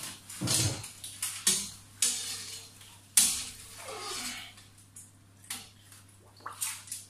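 A large hooked fish thrashing at the water surface as it is pulled into a landing net, making a series of irregular sharp splashes.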